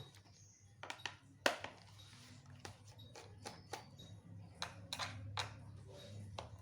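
Scattered light clicks and taps of hands and a tool working on a Dell Vostro 3480 laptop's plastic case as it is taken apart, over a low steady hum.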